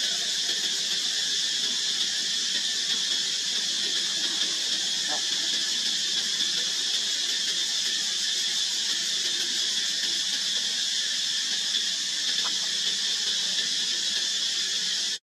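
Steady, high-pitched insect chorus, a continuous drone of the kind cicadas make, with no break or change.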